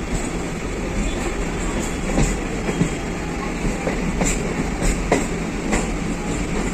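A moving train: steady rumble of the wheels on the track, with irregular clicks and knocks as they run over rail joints and points.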